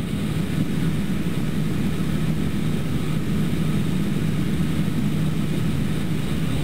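Extra 300L's six-cylinder Lycoming engine and propeller droning steadily at reduced power on final approach, heard inside the cockpit with airflow noise.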